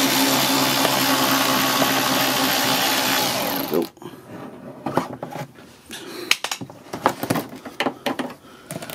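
A cordless power drill/driver running steadily for about four seconds as it backs out an 8 mm bolt, then winding down. After it stops come scattered clicks and light knocks.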